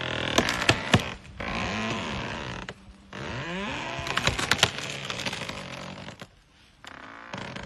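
A tree trunk creaking and cracking under the strain of a bull African elephant pushing against it. Sharp cracks of wood come near the start and again about halfway, between long creaks that slide up and down in pitch.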